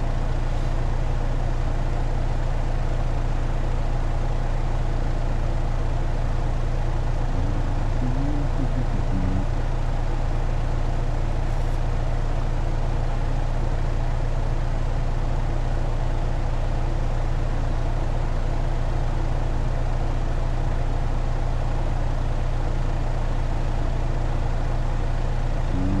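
Steady low hum from an outdoor air-conditioner condenser unit whose compressor is not running, drawing too little current to register a locked-rotor amp reading.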